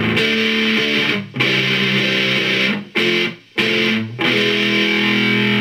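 Electric guitar played through homemade fuzz and distortion pedals: distorted chords that are choked off short several times, then a chord left to ring out for the last second or so.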